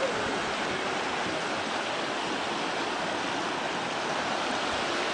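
Steady rushing of water, an even roar with no breaks.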